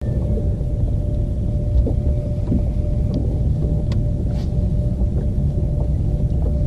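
Bass boat's bow-mounted electric trolling motor running: a steady low rumble with a thin, constant whine. A few faint clicks, the sharpest about four seconds in.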